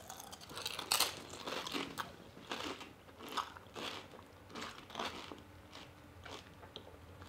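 Tortilla chips being chewed by two people: a run of crisp crunches, strongest about a second in, growing softer and sparser toward the end.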